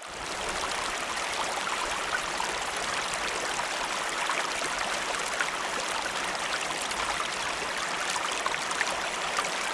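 Steady running water, like a small stream, with a dense patter of small splashes.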